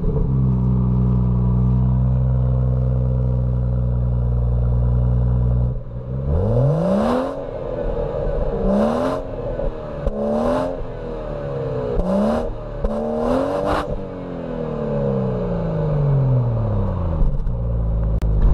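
BMW 340i's 3.0-litre twin-turbo inline-six idling at the exhaust tips, then blipped five times about six seconds in. The last rev falls slowly back to a steady idle.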